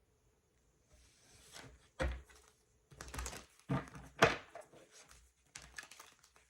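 Tarot cards being handled on a table: a soft rustle, then a string of sharp knocks and clicks as cards are shuffled and set down.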